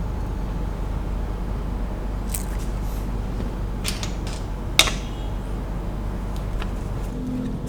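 Small plastic building bricks being handled and snapped together: a few scattered sharp clicks, the loudest about five seconds in, over a steady low background hum.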